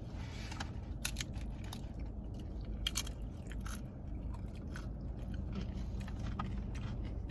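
Tortilla chips crunching and being chewed close to the microphone, in irregular sharp crunches, over a steady low hum.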